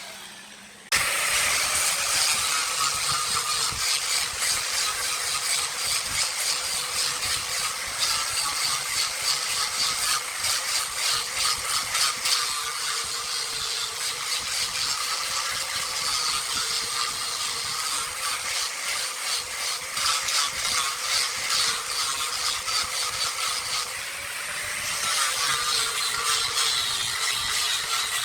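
Wood lathe running while a turning tool cuts into the spinning redwood, a steady fast rattling scrape. It starts abruptly about a second in and eases off briefly near the end.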